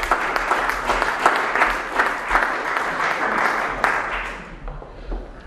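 Audience applauding, many hands clapping, dying away about four and a half seconds in.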